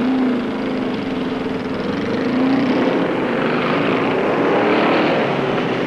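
Motorcycle engine running on the move, its pitch rising and falling slightly with the throttle, under a rush of road and engine noise that swells in the middle.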